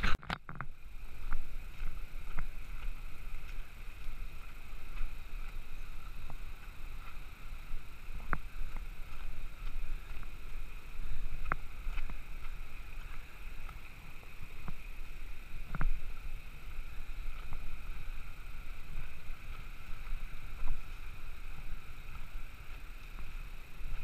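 Shallow rocky creek running over stones, a steady rushing hiss with a low rumble underneath, broken by a few sharp clicks, likely steps or knocks on rock.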